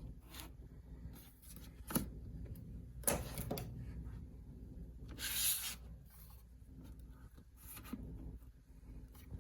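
Light handling noises close to the microphone: rubbing and rustling, with sharp clicks about two and three seconds in and a brief hissing rush about five seconds in.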